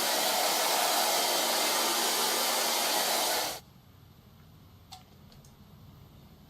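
Hair dryer blowing steadily, then cutting off suddenly about three and a half seconds in; a few faint clicks follow.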